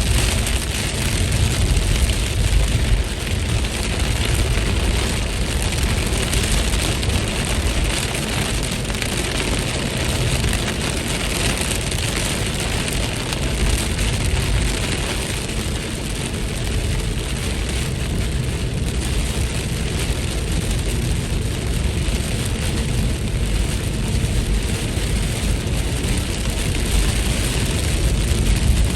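Steady rain falling, a continuous even hiss with a heavy low rumble underneath.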